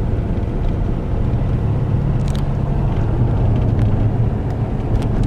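Vehicle running at a steady pace, a constant low rumble of engine and road noise.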